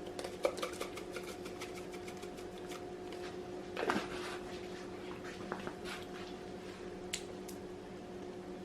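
Lemon pepper being shaken from a seasoning shaker in light, uneven taps and rattles, over a steady low electrical hum; a louder brief scrape or knock comes about four seconds in.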